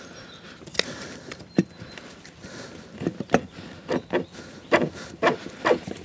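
Clicks and knocks of a cartridge oil filter housing being handled and screwed back together after a new filter cartridge is fitted, with a run of short scraping ticks, about two a second, in the second half.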